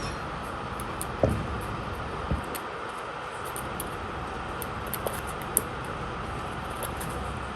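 Kittens playing with a ball: a few light knocks and thumps, the loudest about a second in, over a steady background hum.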